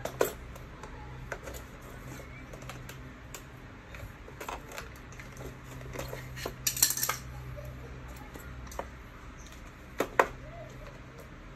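Scattered sharp metallic clicks and clinks of a screwdriver working on a miniature circuit breaker and its small metal parts. A quick cluster comes about seven seconds in and two more clicks near the end, over a low steady hum.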